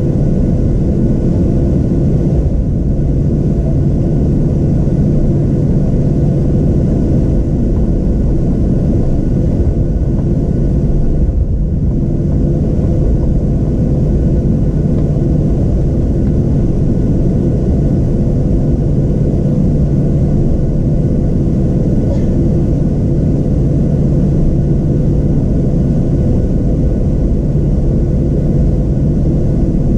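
Cabin noise inside a Boeing 737-700 taxiing, its CFM56-7B turbofan engines running at taxi power: a steady rumbling hum with a few held tones.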